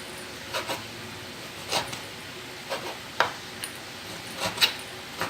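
Irregular clinks and knocks of kitchen utensils and dishes being handled, about eight separate hits, with the loudest ones a little past three seconds in and near the end.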